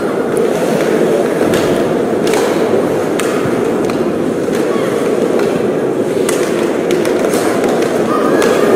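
Ice hockey play: skate blades scraping and carving on the ice, with sharp clacks of sticks on the puck and against each other over a steady arena din. Voices start to rise near the end.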